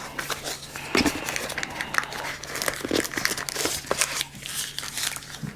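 Packaging being handled during an unboxing: irregular crinkling and rustling of paper sheets and plastic wrapping, with small clicks.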